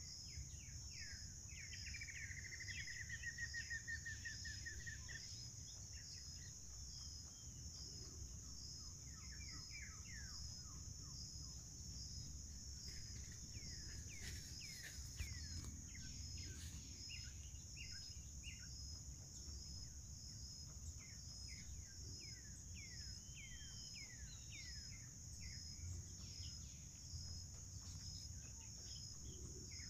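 Insects trilling steadily in a continuous high, pulsing chorus, with birds calling over it: a long rapid trill in the first few seconds, then clusters of quick downward-sweeping whistled notes around the middle and again later.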